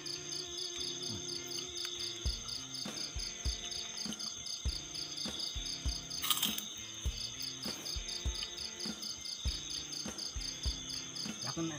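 Night insects, crickets, chirping in a steady pulsing rhythm of about four pulses a second over a continuous high-pitched whine. Soft low knocks from handling plates and food come and go, with a brief louder rustle about six seconds in.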